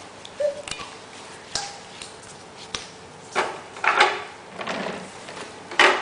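Irregular knocks and taps of a baby's hands slapping the tiled floor and grabbing the rim of a plastic toy dump truck. There are about seven, the loudest near the end.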